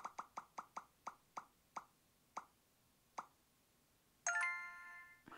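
Random-number app's tick sound effects on an iPad as the numbers shuffle: short plops that slow from several a second to about one a second, like a spinner winding down. A bright chime about four seconds in marks the number being picked.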